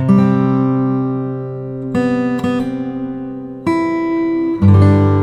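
Background music: strummed acoustic guitar chords, each one ringing out and fading before the next, which comes every one to two seconds.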